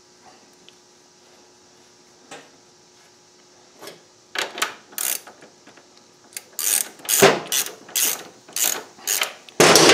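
Ratchet wrench clicking through about a dozen short strokes, roughly two a second, starting a little under halfway in: the rear axle nut of a Kawasaki KLR 650 being run down snug before it is torqued.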